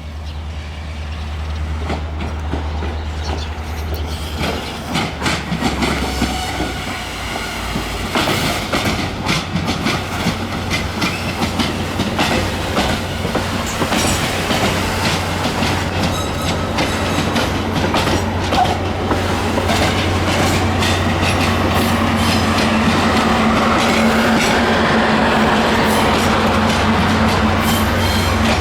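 Metra commuter train rolling slowly in reverse, its wheels clicking over rail joints over a steady low diesel locomotive drone. It grows louder as it comes closer.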